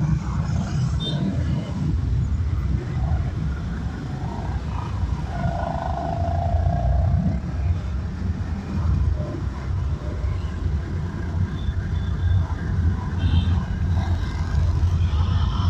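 Traffic and road noise heard from a car's dashcam while driving: a steady low rumble, with a passing mid-pitched tone for about two seconds around the middle.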